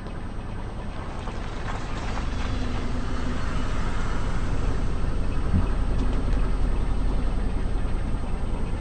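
A car's engine running and growing louder as the car approaches, with a few light clicks about two seconds in and a short low thump about five and a half seconds in.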